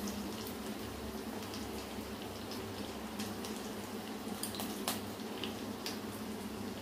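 Bara (lentil fritters) deep-frying in hot oil in a cast-iron kadai: a steady bubbling sizzle with scattered pops and crackles.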